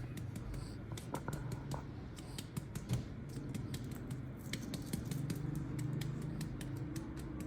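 A hand patting a baby's back to bring up a burp: light, irregular taps, several a second, over a steady low hum.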